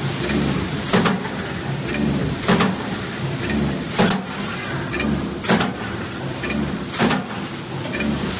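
Automatic napkin packing machine running: a steady mechanical hum with a short, sharp stroke repeating about every second and a half.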